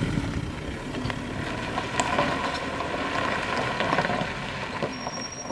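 Fire truck driving past on a dirt track, a steady engine and road noise.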